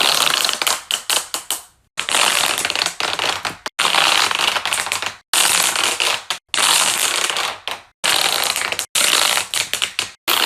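Giant plastic pop tubes being stretched out, their ridged folds crackling and popping open. The crackling comes in about eight stretches of a second or two each, with short breaks between them.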